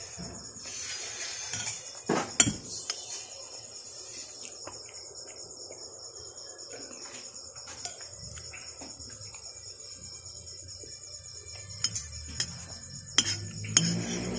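Crickets chirping in a steady, high, rapid trill, with a spoon and fork clinking and scraping on a plate: a sharp clink about two seconds in and a few more near the end.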